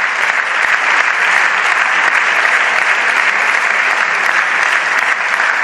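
Sustained applause from a chamber full of seated deputies clapping.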